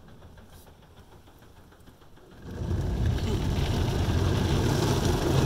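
Quiet car cabin for the first half, then about halfway through the loud, steady rushing of automatic car wash equipment comes in all around the car, heard from inside the cabin.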